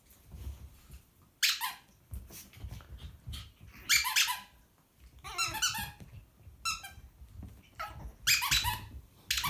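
Rubber squeaky dog toy squeaking in short bursts, about five of them, one made of several quick squeaks in a row.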